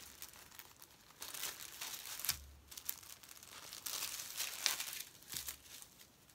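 Packaging crinkling and rustling as it is handled and unwrapped, in two stretches, with a few sharp crackles.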